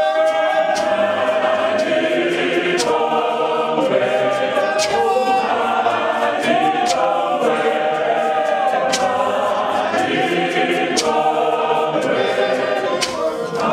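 A church congregation singing a cappella, men's and women's voices together, steady and full throughout. Sharp knocks cut through the singing about every two seconds.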